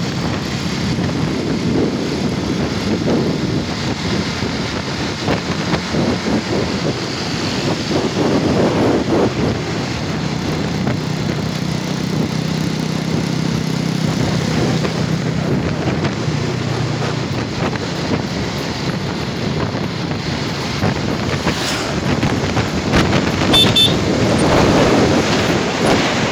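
Wind rushing over the microphone mixed with the motorcycle's engine and tyre noise at road speed; a steadier low engine hum comes in for several seconds midway.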